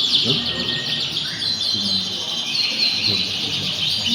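Many domestic canaries singing at once, a dense unbroken chorus of fast, high trills and chirps overlapping one another.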